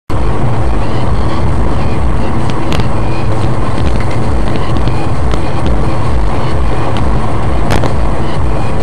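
Steady low road and engine rumble of a car driving at highway speed, heard from inside the cabin through a dashcam's microphone, with a few sharp clicks or rattles.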